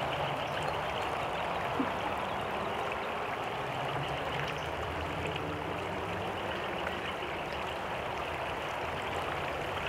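Shallow stream flowing over stones and riffles: a steady rush of water.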